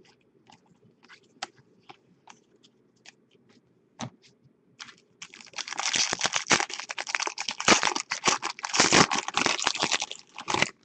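Light clicks of trading cards being handled. Then, about five seconds in, a foil card-pack wrapper being torn open and crinkled as it is peeled off the cards: loud, dense crackling that stops just before the end.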